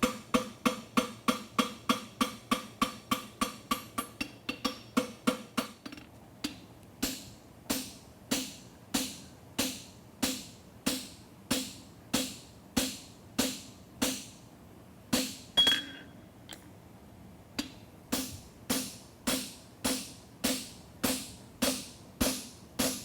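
Hand hammer striking a hot steel horseshoe on an anvil, forging the shoe. A fast run of ringing blows, about three a second, for roughly six seconds, then steady blows at about two a second, with a short pause a little past the middle before they resume.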